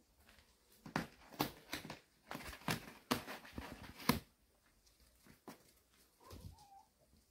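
Irregular light clicks and scratches from cats and kittens scrambling over cardboard boxes, stopping about four seconds in. A short, faint kitten mew follows about two seconds later.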